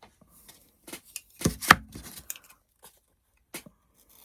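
Fabric scissors and craft things handled on a tabletop: a few sharp clicks and taps, the two loudest close together about a second and a half in.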